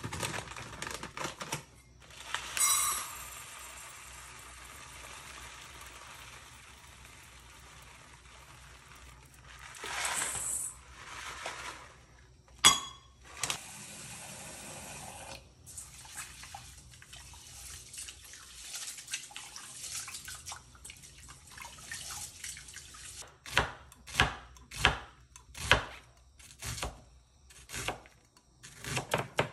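Kitchen tap running water into a steel sink in a steady hiss, with dry basmati rice poured from a metal measuring cup into a steel bowl about ten seconds in. Near the end comes a quick run of sharp knocks.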